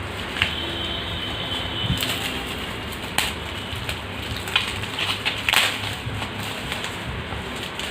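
Packaging being handled and opened by hand: irregular crinkling with a few sharp clicks and taps.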